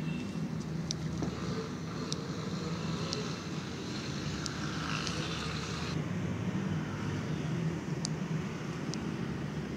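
Steady low rumble of road traffic, with a few short, faint high ticks scattered through.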